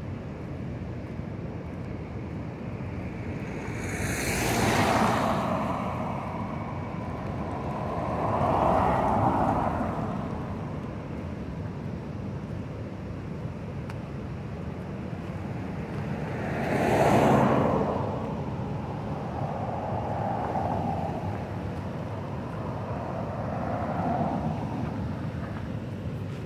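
Road traffic: a steady rumble with vehicles passing one after another, each swelling and fading, the loudest passes about five seconds in and about seventeen seconds in.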